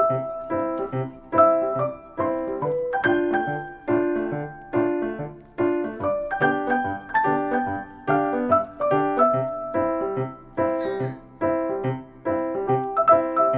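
Background piano music: a light tune of evenly paced struck notes and chords, each fading before the next.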